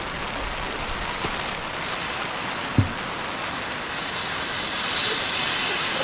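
Steady rushing of a flood-swollen river in heavy rain, a hiss that grows louder over the last second or so. One short low thump about three seconds in.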